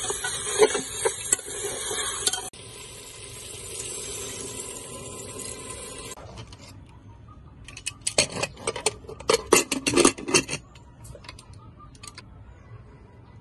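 Metal spatula stirring and scraping spiced beef trotters in an aluminium pressure cooker, with sizzling and clicks against the pot, changing to a steadier, quieter hiss after about two and a half seconds. About eight seconds in comes a quick run of metal clinks and clanks on the pot.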